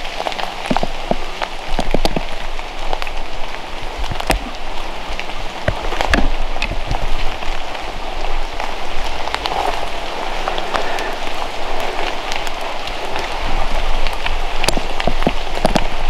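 Continuous crackling rustle of dry leaves and undergrowth with scattered sharp snaps, uneven in loudness, as of someone walking through brush in the woods.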